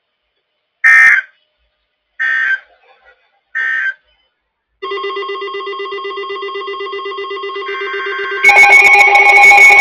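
Three short bursts of EAS/SAME digital data tones from a NOAA Weather Radio broadcast, about 1.3 s apart, followed by weather alert radios sounding their alert: a steady pulsing electronic alarm tone, joined near the end by a second, louder alarm in a different pitch.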